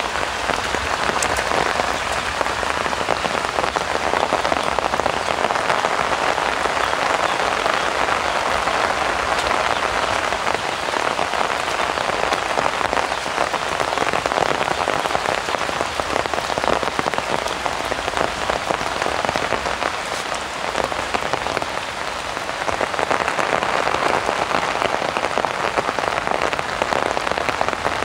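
Heavy rain pouring steadily, a dense even patter.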